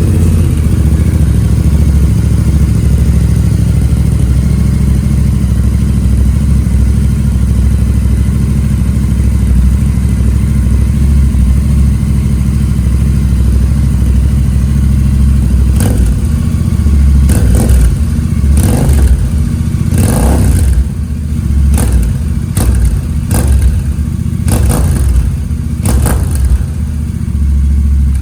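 Royal Enfield Interceptor 650 parallel-twin running through aftermarket slip-on exhausts with dB killers fitted. It idles steadily at first, then from about halfway in is blipped on the throttle roughly ten times in quick succession, and cuts off suddenly at the end.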